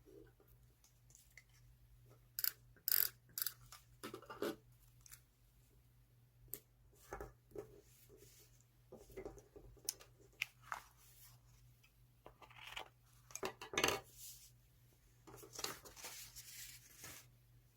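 Paper handled and cut with scissors: irregular snips, crinkles and rustles of magazine paper, with a longer rustle near the end.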